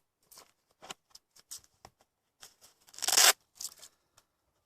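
Handling of a Leatherman Wave multi-tool and its pouch: light clicks and rustles, then one short, loud tearing rasp about three seconds in.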